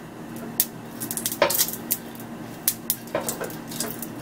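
A silicone basting brush working oil across the ridges of a hot stovetop grill pan: a handful of scattered light knocks and clicks as brush and pan bump, over a steady low hum.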